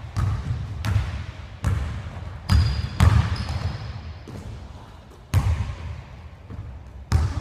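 Basketball dribbled on a gym floor: a string of sharp, echoing bounces about a second apart, a pause of about two seconds in the middle, then two more bounces near the end.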